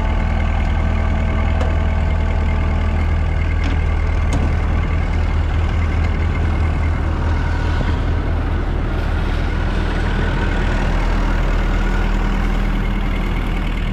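Massey Ferguson 86 combine harvester's engine running steadily, with a constant low hum.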